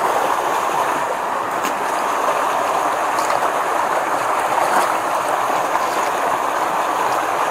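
Steady rush of a shallow, muddy creek flowing past, with water sloshing as someone wades through it.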